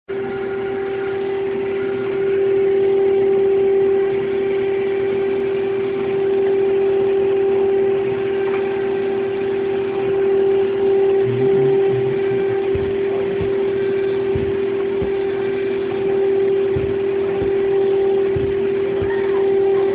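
PCB milling machine's spindle running with a steady high whine while its cutter clears copper from a copper-clad board in the rubout pass. A few faint low knocks come in the second half.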